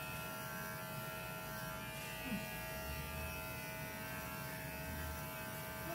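Electric pet hair clippers running steadily with an even hum while trimming a small dog's fur.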